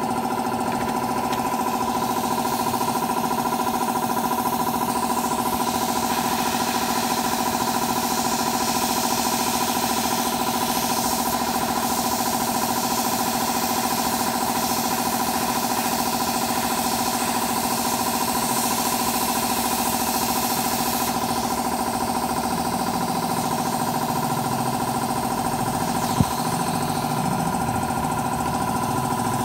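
A small motor running at a steady speed with a constant hum, with a single sharp click near the end.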